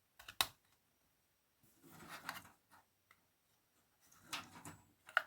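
Plastic SATA cable connectors being handled and pushed onto an SSD's ports. A sharp click comes just after the start, then two short stretches of rubbing and scraping, and another sharp click near the end.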